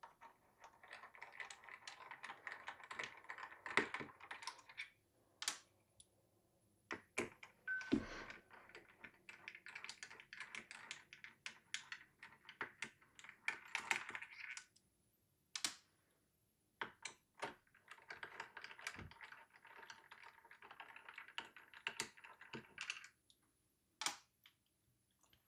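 Small screwdriver backing out the bottom-plate screws of a mini PC's metal case: three spells of rapid fine clicking and scraping as the screws turn, with single clicks and taps between them.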